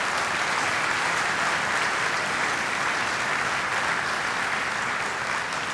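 Large audience applauding: steady, dense clapping that eases slightly near the end.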